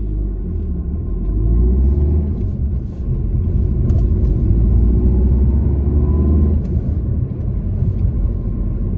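Engine and road rumble inside a moving car's cabin, growing louder about a second and a half in and again around three seconds as the car gets going, with a faint rising whine in the middle.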